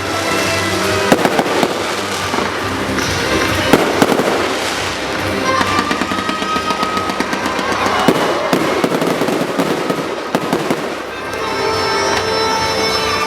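Aerial fireworks going off: repeated sharp bangs and crackling, with music playing underneath.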